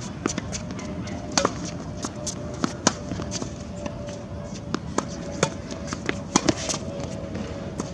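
Tennis balls being struck by rackets and bouncing on the court: a string of sharp, irregular pops, some loud and some fainter, over steady background noise.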